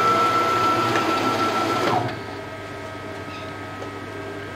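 CNC router's X-axis drive whining at one steady pitch as the gantry traverses a commanded 227 mm calibration move for Mach3's steps-per-unit setting, then gliding down in pitch and stopping about two seconds in as the axis decelerates to a halt. A faint steady hum remains.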